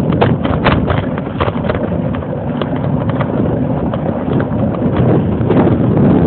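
Wind buffeting the microphone of a camera riding on a moving bicycle: a loud, steady low rumble, with many irregular sharp clicks and rattles throughout.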